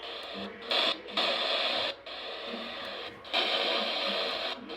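NOAA Weather Radio broadcast heavy with static, hissing in choppy, broken-up stretches, with the automated warning voice buried under the noise.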